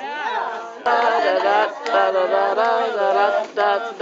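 Voices singing a song without instruments, holding wavering sung notes; the singing jumps louder about a second in.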